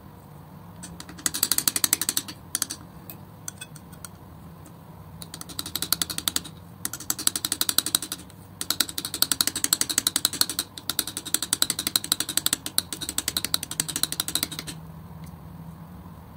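Metal palette knife mixing and spreading thick wet acrylic paint, giving spells of rapid fine sticky clicking and crackling. There are three spells: a short one about a second in, another around six seconds in, and a long one from about nine to fifteen seconds in.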